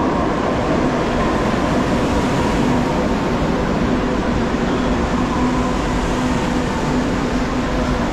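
Madrid Metro train pulling into an underground station and running along the platform: a loud, steady rumble of wheels and motors with a faint steady whine.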